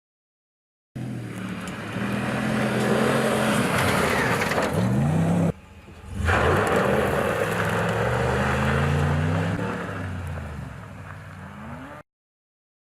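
Ram 1500 Rebel pickup truck engine accelerating and revving while driving off-road, its pitch climbing and falling in pulls. The sound cuts abruptly about halfway through to a second stretch of driving that fades before stopping suddenly near the end.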